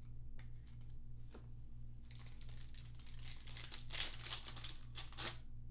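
A trading-card pack wrapper being torn open and crinkled, a dense crackle that builds about two seconds in and stops abruptly near the end, after a few light clicks.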